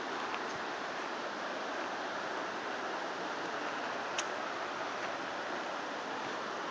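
Steady rush of a mountain creek's flowing water, with a single faint click about four seconds in.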